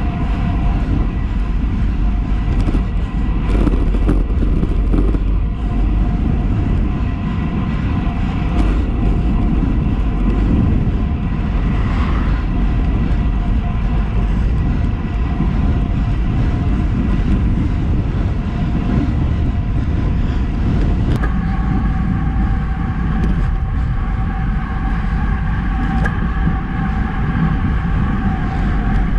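Road bike at speed on Roval Rapide carbon wheels: wind rushing over the handlebar camera's microphone and tyres rolling on asphalt, with a steady hum. About 21 s in the hum changes pitch as the sound switches to the ride on the deeper CLX64 wheels.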